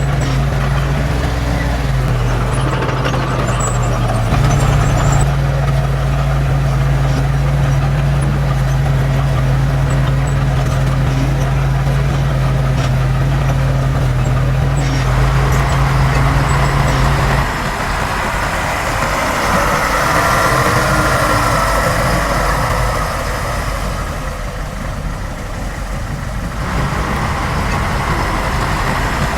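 Heavy diesel engine of earthmoving machinery running steadily with a low hum; about 17 seconds in the steady hum gives way to a rougher, noisier machine sound with a faint whine.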